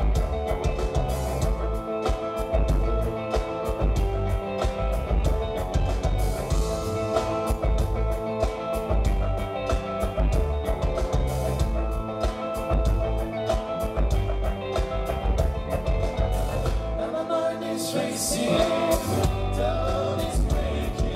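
Live pop-rock band playing a song: electric guitars, bass guitar, a cello and a drum kit keeping a steady beat, with sung vocals. Near the end the bass and kick drum drop out for about two seconds, then come back in.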